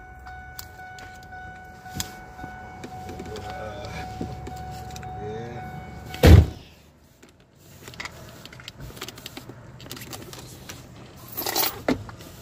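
Phone handling noise inside a car: clicks and rubbing, one loud knock about halfway through as the phone is moved, and a short rustle near the end. A steady high tone sounds through the first half and stops at the knock.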